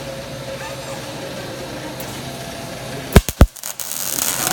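MIG welder humming steadily, then two sharp loud clicks about three seconds in. Near the end the welding arc starts with a steady hiss.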